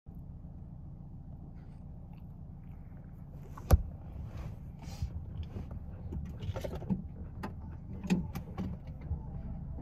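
Low steady rumble of a car idling, heard inside the cabin. A single sharp click comes a little under four seconds in. After it come scattered small clicks and short breathy puffs from a Great Pyrenees puppy panting.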